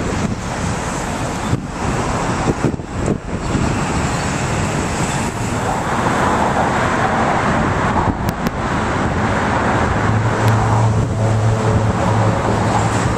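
Steady road traffic noise from cars driving across the bridge, with a deeper engine hum from a heavier vehicle coming in about ten seconds in.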